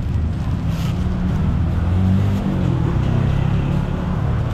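Motor vehicle engine running close by, a steady low rumble, with a couple of faint sharp knocks.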